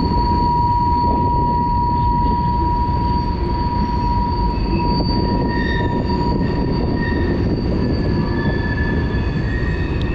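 Rushing river water at high snowmelt flow, with a steady high-pitched whine over it and shorter, shifting whistling tones joining from about halfway through.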